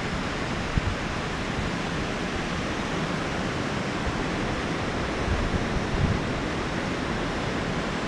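Steady rushing of river water churning over rapids, with wind buffeting the microphone.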